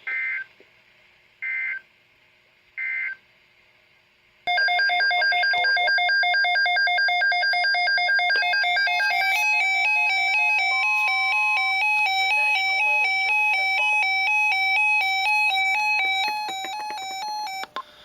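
Three short warbling data bursts of the SAME end-of-message code from NOAA Weather Radio, about a second and a half apart, closing out a severe thunderstorm warning. After a brief pause, a loud electronic beeping tune of stepping notes plays for about thirteen seconds.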